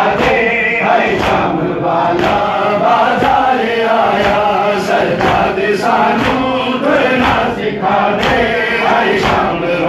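A crowd of men chanting a Punjabi noha (mourning lament) in unison behind a lead voice on a microphone. Rhythmic matam (chest-beating) slaps come about every three-quarters of a second, in time with the chant.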